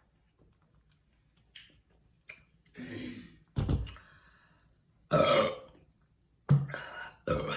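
A woman burping loudly several times in a row, the first about three seconds in, after small clicks of eating or handling.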